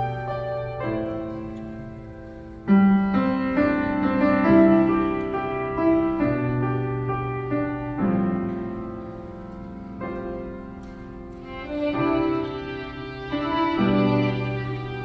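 Violin and cello duet playing a slow, hymn-like melody over piano accompaniment, with notes struck and left to fade every few seconds.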